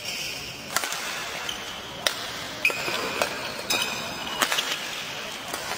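Badminton rackets striking a feathered shuttlecock in a singles rally: a string of sharp cracks about every half second to a second, with short squeaks from court shoes and a large-hall background.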